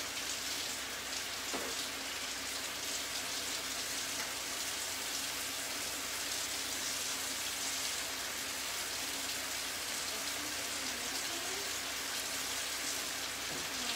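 Chopped bacon sizzling steadily in a full skillet on the stove.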